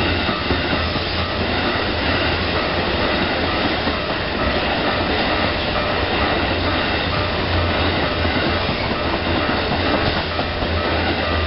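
Keikyu electric train passing close by over crossover points, with steady running noise and wheels clattering over the rail joints. A level-crossing warning bell rings steadily under the train noise.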